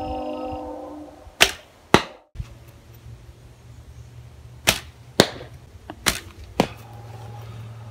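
Three shots from a hand-held wood, bamboo and horn-tipped bow (a crossbow prod shot by hand). Each release gives a sharp snap of the bowstring, followed about half a second later by a second sharp crack, the arrow striking the target.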